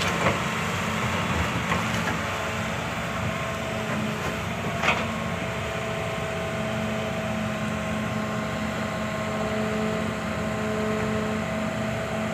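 Hitachi 200-class hydraulic excavator working, its diesel engine running steadily under load as the boom and bucket dig through mud, with a steady high tone over the engine drone. A short sharp clank comes about five seconds in.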